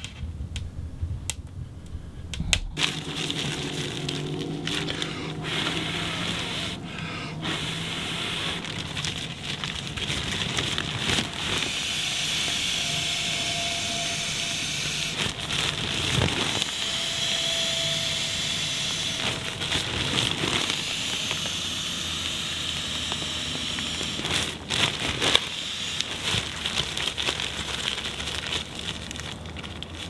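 Wood stove fire crackling for a couple of seconds, then a long steady rushing, rustling noise of air and nylon as an inflatable sleeping pad is blown up with its NeoAir pump sack.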